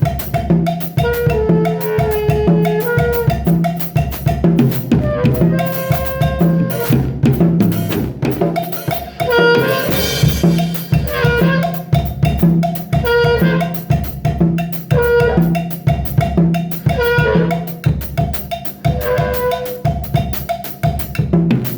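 A drum kit played with a steady beat of kick and snare hits along with a song that has sustained melodic notes.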